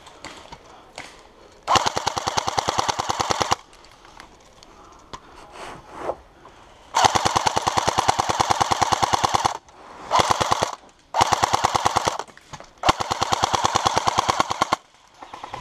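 Airsoft STG 44 replica firing on full auto in five rapid bursts: one about two seconds in, then a long burst around seven seconds in, a short one and two more near the end.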